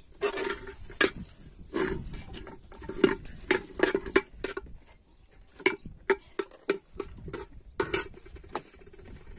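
Cooking utensils clinking and knocking against a metal pot, in irregular sharp strokes that each ring briefly, with a short lull about halfway through.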